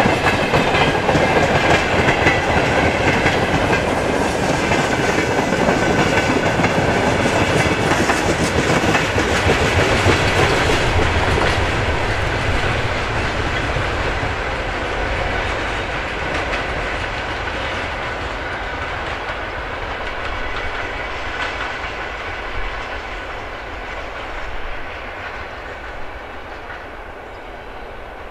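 Mixed freight train's boxcars rolling past on the rails, loud at first, then fading gradually from about ten seconds in as the end of the train moves away.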